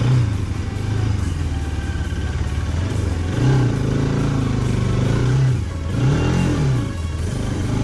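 Motorcycle engine running while riding, its pitch rising and falling with the throttle, with a quick rev up and back down about six seconds in.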